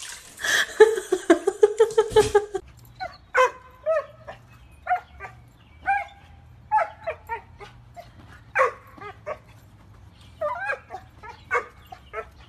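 Small dog giving short, high-pitched yips and barks in irregular bursts, about a dozen of them. A different, pulsing pitched sound fills the first two seconds.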